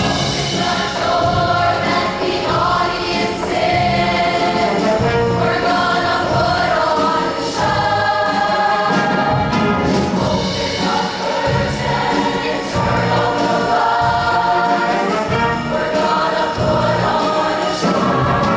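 High school show choir singing in harmony with instrumental accompaniment.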